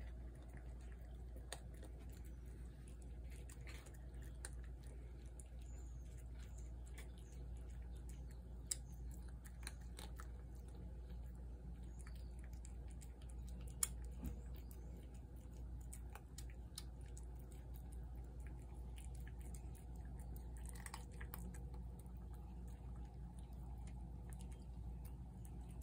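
Cats eating cat food from plates: faint chewing with scattered small clicks, two sharper ones about 9 and 14 seconds in, over a steady low hum.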